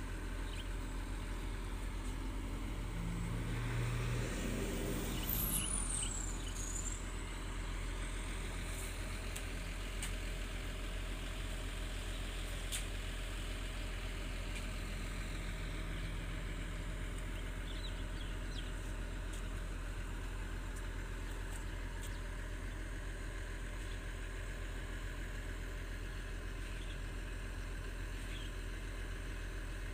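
Diesel engines of a Volvo EC210B long-reach excavator and a Hitachi ZX200 excavator running steadily at work. The engine note swells briefly louder a few seconds in, then settles back.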